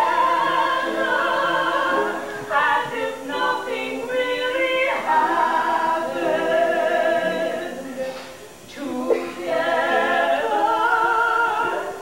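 Singers performing a show tune from a stage musical, voices in harmony on long held notes, with a brief break in the singing a little past the middle.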